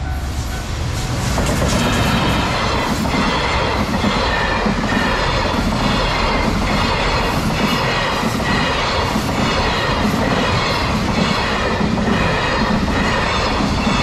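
A long JR Freight container train hauled by an EF210 electric locomotive passing over a level crossing at speed. A steady rumble swells about a second and a half in, with wagon wheels clattering rhythmically over the rail joints and crossing.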